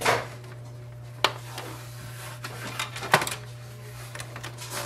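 Plastic parts of an Epson WorkForce WF-2850 inkjet printer being handled and pressed into place: a few sharp plastic clicks, one at the start, one about a second in and the loudest about three seconds in, as a side cap is locked into position. A steady low hum runs underneath.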